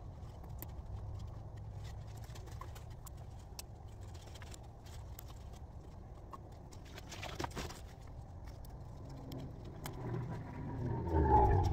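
Sweet potato leaves being plucked off their stems by hand: small snaps and leaf rustles over a low outdoor rumble. A louder bird call comes near the end.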